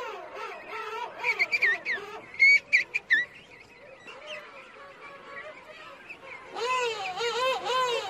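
Crested penguins calling: a chorus of overlapping, wavering braying calls, with a few loud, sharp calls about two and a half to three seconds in. It thins out for a few seconds, then swells into a dense chorus again near the end.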